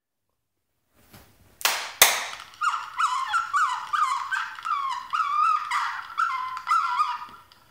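Vintage Pound Puppy Barker toy's electronic bark: two sharp clicks, then a quick run of about a dozen high-pitched yaps, a little over two a second.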